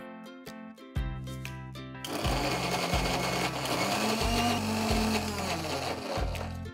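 Electric mixer grinder running, puréeing blanched spinach with a little of its cooking water in its steel jar. The motor starts about a second in and gets louder about a second later as it blends.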